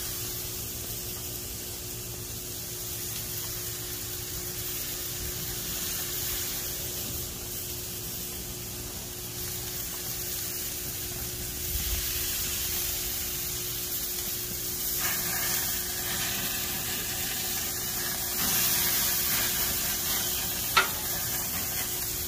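Steaks sizzling on a gas grill as marinade juice is spooned over them, a steady hiss that swells several times as spoonfuls land on the hot meat and grates. A single sharp click near the end.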